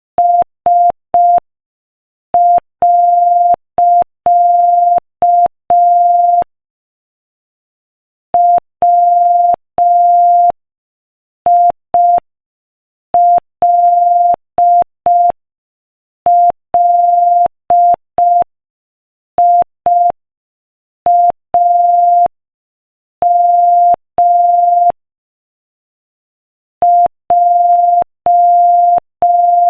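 Morse code practice tone at 5 words per minute: one steady beep of a single pitch keyed on and off in short dots and longer dashes, the letters separated by pauses of a second or more.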